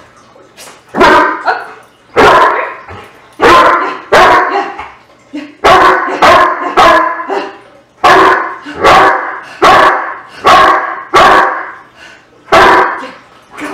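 Doberman barking up at its handler, about a dozen loud single barks, unevenly spaced and coming faster in the middle. These are demand barks for a tug toy held out of reach, the bark of IPO protection bark-and-hold training.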